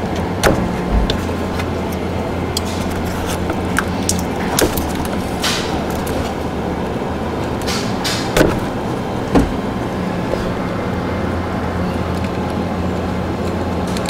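Hands and cutters working a car's wiring harness: scattered clicks and rustles of plastic loom and tape being handled, over a steady low background hum.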